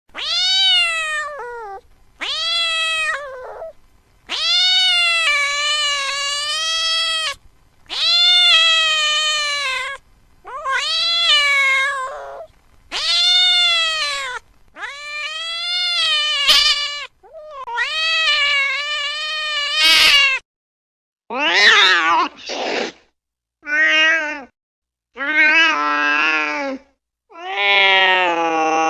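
Domestic cat meowing in a series of long, drawn-out calls, about a dozen in a row with short pauses between them, each rising and then falling in pitch. From about two-thirds of the way through, the calls turn shorter and choppier.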